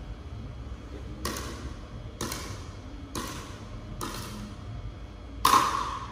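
A pickleball bounced on a wooden hall floor four times, about once a second, before the serve, then struck hard with a paddle about five and a half seconds in; each impact echoes in the large hall.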